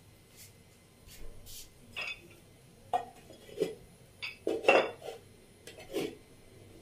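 Kitchen dishes and metal utensils clinking and knocking: about eight separate clinks and taps, some ringing briefly, the loudest about two-thirds of the way through.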